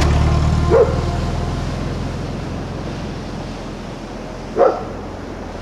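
A dog barks twice, single short barks about four seconds apart, over a low steady hum that fades away early on.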